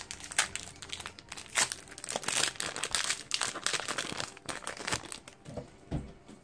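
Foil wrapper of a Pokémon trading card booster pack crinkling and rustling as it is handled and opened, a dense crackle that is busiest in the middle and dies down near the end.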